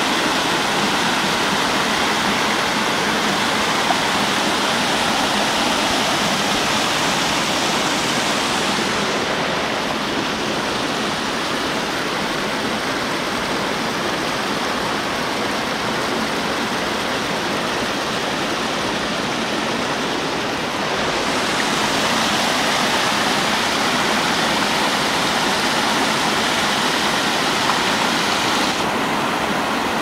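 Small mountain-forest waterfall and creek: water rushing and splashing over rocks, a steady rush with no pauses. For a stretch in the middle the hiss is duller and slightly softer, then it returns.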